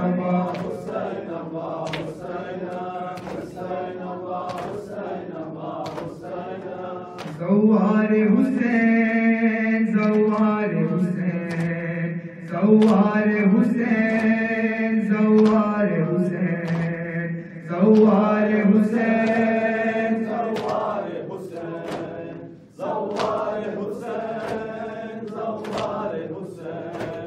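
A young man chanting a noha, a Shia mourning lament, solo into a microphone over the hall's PA. He sings in long held phrases that each start loud and tail off, with sharp slaps keeping a steady beat.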